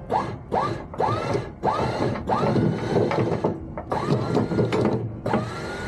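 Newly installed electric anchor windlass run downward in repeated bursts from its handheld control, about eight in all. Each burst starts with a rising whine as the motor spins up. The first few are short and the later ones last up to about a second. The windlass clutch is not tight enough.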